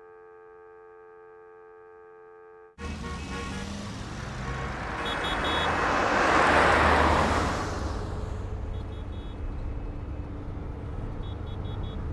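A steady held tone of several pitches, cut off suddenly about three seconds in by road traffic noise. One vehicle passes close, swelling and fading, and a few short high beeps sound.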